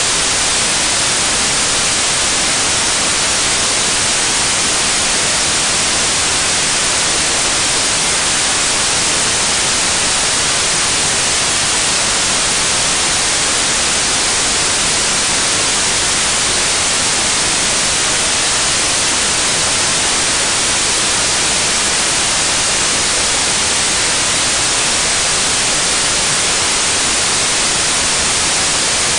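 Steady, loud static hiss like white noise, unchanging throughout, with no engine or drilling sound to be picked out in it.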